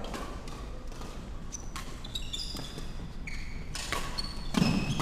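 Badminton rally in an echoing sports hall: rackets striking the shuttlecock in sharp cracks, and sneakers squeaking briefly on the wooden court floor, with a heavier thud near the end.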